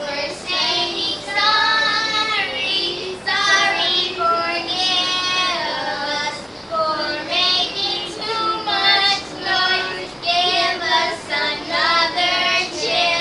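Children singing a song in sung phrases with held notes.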